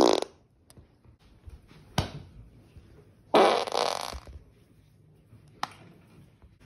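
A person farting: one fart cut off right at the start, then a louder, rapidly fluttering fart about a second long that begins about three and a half seconds in. Two sharp clicks fall between and after them.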